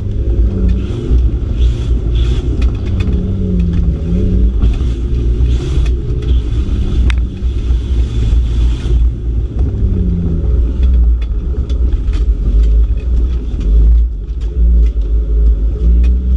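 Engine of an off-road trial car heard from inside the cabin, revving up and down as it drives over rough ground, with a heavy low rumble and scattered clicks and knocks.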